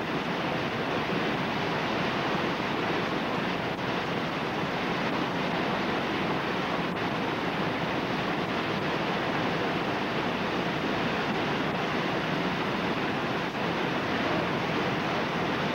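Whitewater rapids pouring through a steep rocky creek drop: a steady, even rush of water.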